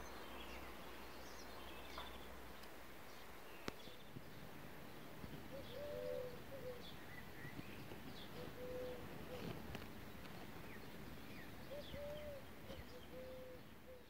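Small birds chirping in short high calls throughout, with a dove cooing in low repeated phrases about six seconds in, around nine seconds and again near the end. A single sharp click a little under four seconds in.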